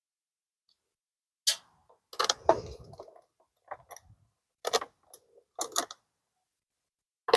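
Short clicks and rattles of metal wire terminals and battery-post hardware being handled as the ground and positive wires are disconnected from the camper batteries, in several brief clusters, with one sharp click at the very end.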